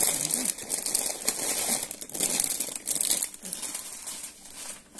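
Plastic snack packets crinkling and rustling as they are handled and packed into a plastic bin, easing off near the end.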